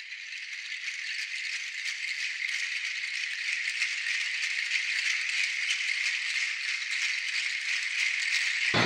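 A dense, high rattling that goes on steadily and slowly grows louder, then cuts off suddenly near the end.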